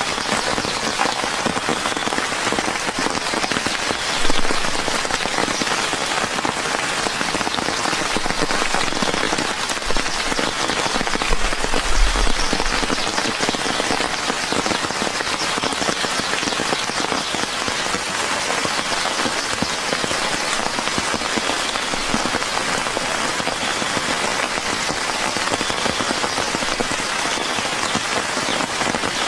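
Steady rain falling in an even hiss, with a brief low thump about four seconds in and another low rumble around twelve seconds in.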